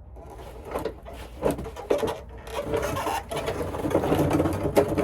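Hand tools and metal parts clinking, scraping and rubbing in irregular clicks, louder from about three seconds in.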